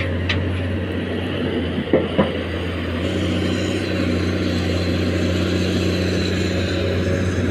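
Diesel engines of a Komatsu excavator and a Tata tipper truck running steadily while the excavator loads soil into the truck's steel body. There are two short knocks about two seconds in, and a steadier pitched engine drone joins about three seconds in.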